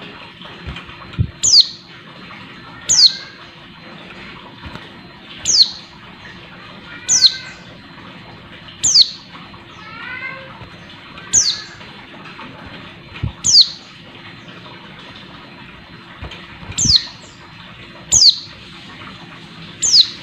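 Female white-eye (pleci) calling: a sharp, high call that sweeps down in pitch, repeated about ten times at intervals of two seconds or so, with soft twittering between a few calls. This is the female's call to males. A few soft thumps sound as well.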